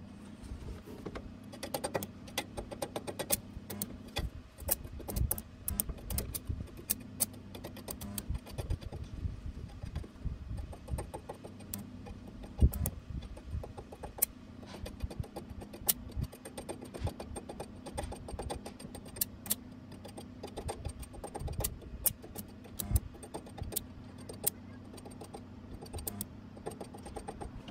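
Stick-welding arc (SMAW) crackling as a Parkside welding rod burns onto steel, a dense run of sharp pops and sputters over a steady low hum. The crackle starts about a second in and cuts off at the very end.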